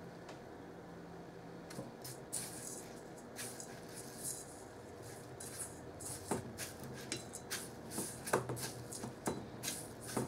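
Wooden chopsticks working an onion ring through dry panko crumbs in a stainless steel bowl: the crumbs rustle and crackle, and the chopsticks tap and scrape against the bowl with short ringing clicks, more of them in the second half.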